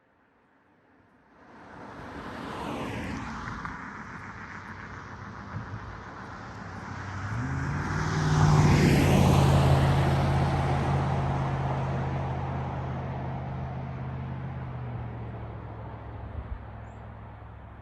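Motor vehicles passing by: a first one swells up about two to three seconds in, and a louder one peaks about eight to nine seconds in, after which its low engine hum slowly fades away.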